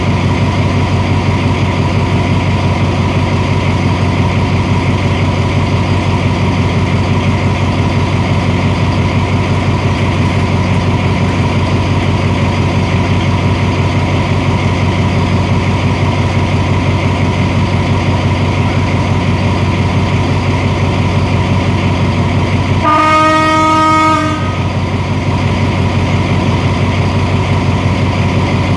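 Alsthom diesel-electric locomotive No. 4217 idling steadily, a low engine drone with a thin steady whine over it. About 23 seconds in a locomotive horn blows once for just over a second.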